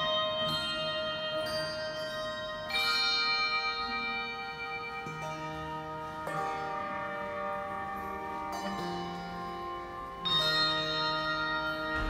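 Handbell choir ringing brass handbells in a slow hymn: chords struck every one to two and a half seconds, each left ringing into the next, with the strongest strikes about three seconds in and near the end.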